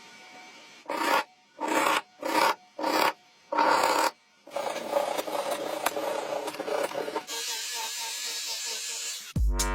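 A hand tool rubbing over wood, first in five separate strokes and then continuously. Music with a beat comes in near the end.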